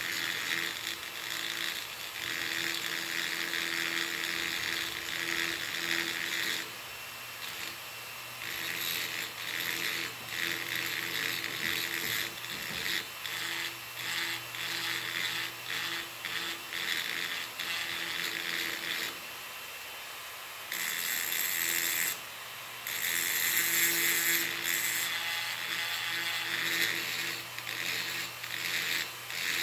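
A Dremel rotary tool on a flexible shaft runs steadily with a metal-cutting bit, grinding and smoothing a port of a Stihl 034 AV chainsaw cylinder. The grinding comes and goes as the bit touches the metal, easing off briefly about seven and twenty seconds in while the motor keeps running.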